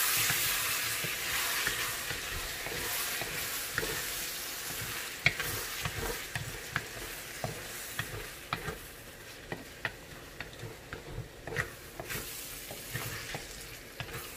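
Eggplant and eggs being stirred in a hot frying pan: a steady sizzle that slowly fades, with frequent clicks and scrapes of the stirring utensil against the pan.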